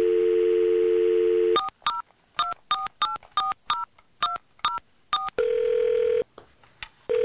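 Telephone line sounds: a steady dial tone, cut off about one and a half seconds in by about eleven quick keypad tone beeps as a number is dialled, then the ringing tone on the line, one ring and the start of a second near the end.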